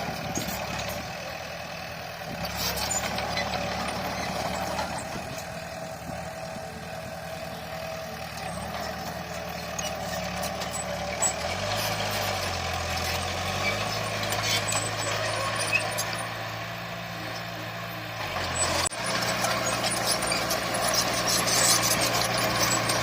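Diesel engines of heavy earthmoving machinery running. The engine note steps to a different pitch about halfway through and again near the end, where it grows louder.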